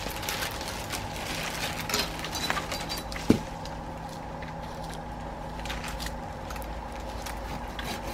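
Irregular crackling and rustling of plum-tree twigs and branches during pruning, with one sharp snap about three seconds in, over a steady low hum.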